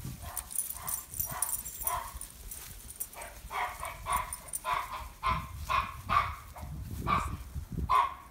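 Small dog giving short, high-pitched whining cries over and over, faint at first, then louder and quicker, about two a second, from about three seconds in: eager whining at a fence for a dog friend on the other side.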